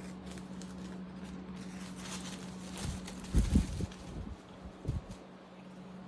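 Unboxing handling sounds: soft rustling, then a few dull low thumps a little past the middle and one more shortly after, as of the box or laptop being set down on a desk, over a steady low hum.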